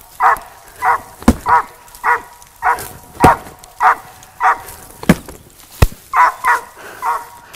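A squirrel dog barking treed at the base of a tree, a steady run of barks a little under two a second, the sign that it has a squirrel up that tree. Several sharp clicks break in among the barks, the loudest a little over a second in and around three seconds in.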